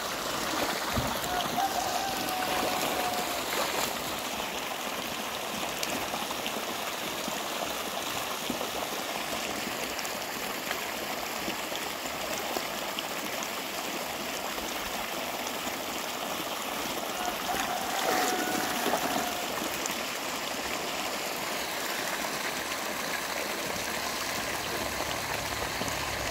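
A steady jet of water gushing from the wall of a concrete fish pond and splashing into its shallow water.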